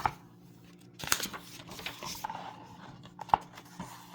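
Paper rustling and crinkling as a picture book's pages are handled and turned, with a sharp click at the start and another a little past three seconds in.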